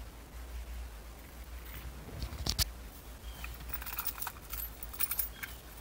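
A bunch of car keys jangling and clinking as they are handled at the ignition, with a sharper click about two and a half seconds in.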